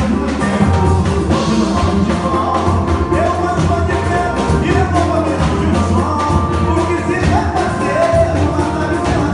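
Live pagode band playing, with a singer's voice carrying the melody over a steady bass line, percussion and keyboard.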